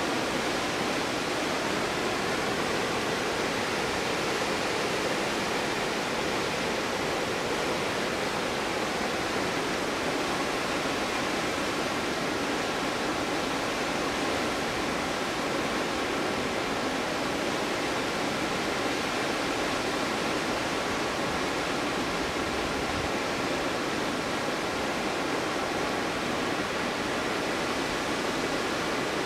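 Steady rushing roar of a large waterfall, Stuibenfall, with water crashing continuously and no distinct events.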